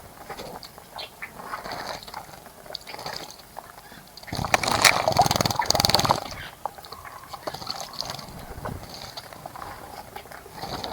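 A bird splashing in a bird bath: a loud, spluttering burst of about two seconds near the middle, against quieter background sound.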